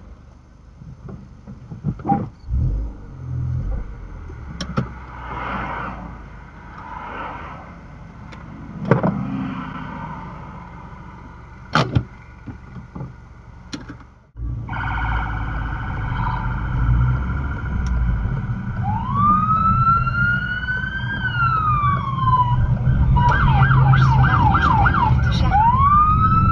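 American-style police car siren sounding a wail that rises and falls, then a fast yelp, then rising again, over a steady low engine rumble. Before a sudden cut about halfway through there are only quieter car sounds with scattered clicks and knocks.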